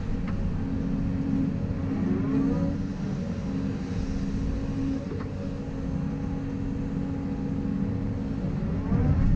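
Hydraulic excavator's diesel engine running under working load as the machine digs and slings mud, its pitch rising and falling twice, about two seconds in and again near the end, with a couple of sharp clicks from the machine.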